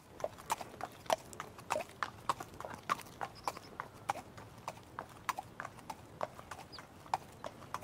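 Donkey hooves clip-clopping at a walk, a few uneven clops a second, as a sound effect.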